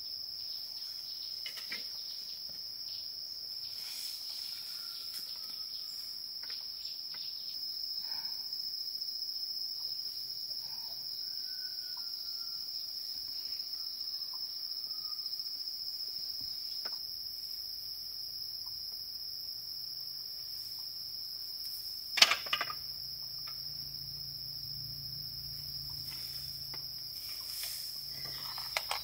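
Continuous high insect drone in a forest, held at one steady pitch, with scattered faint clicks and knocks. One sharp knock comes about three-quarters of the way through.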